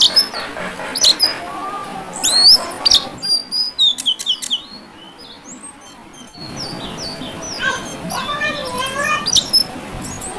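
Male Oriental magpie-robin singing a varied, rapid song of sharp rising whistles and quick chirps, with a quieter pause midway and a run of lower warbling notes near the end. This is the bird's challenging song toward a rival.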